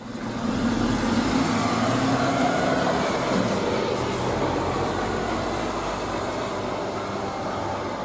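Diesel engine of a truck-mounted concrete pump running as the truck drives slowly and manoeuvres on a street: a steady low engine drone under a wash of road noise, the engine note dropping about three seconds in.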